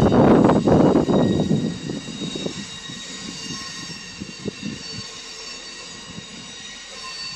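A train rolling past close by: loud rumbling with wheel clacks over the rail joints, fading away after about two seconds. A faint steady high-pitched tone lingers after it.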